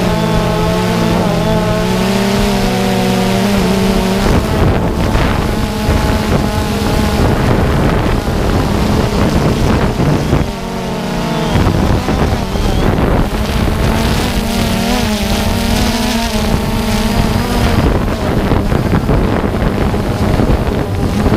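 DJI Phantom quadcopter's propellers and motors humming, the pitch wavering and the hum fading in and out as the drone manoeuvres, under a constant rush of air over the drone-mounted camera's microphone.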